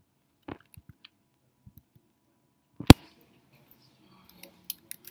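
Faint clicking of laptop keys, with one loud sharp knock about three seconds in.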